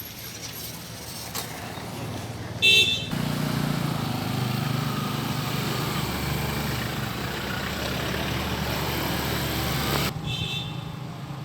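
A vehicle horn toots briefly about three seconds in. A motor vehicle's engine then runs steadily for about seven seconds and cuts off abruptly, and a fainter short horn toot follows.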